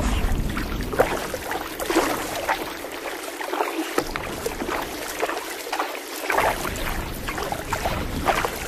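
Kayak paddle strokes on the water: the blades dip in and pull through, with water splashing and dripping off them in an uneven rhythm.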